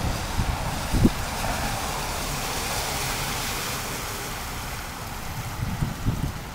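A red SUV driving slowly through shallow floodwater, its tyres sloshing and spraying water in a hiss that swells as it passes about three seconds in, then fades. Wind gusts rumble on the microphone about a second in and near the end.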